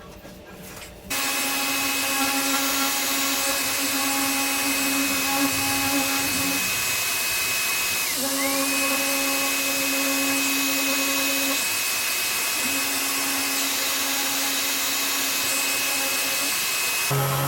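An electric power tool starts about a second in and runs steadily with a high whine. The whine dips briefly in pitch about eight seconds in, then recovers.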